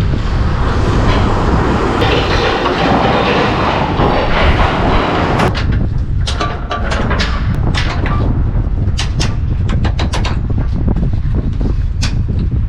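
Steady low rumble of wind against the lorry cab, with heavy rustling for the first five seconds or so, then scattered sharp clicks and taps as the cab curtain is drawn and fastened.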